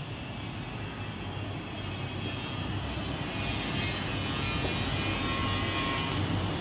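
A steady outdoor roar, a deep rumble with a hiss above it, that grows slowly louder as the balcony is reached.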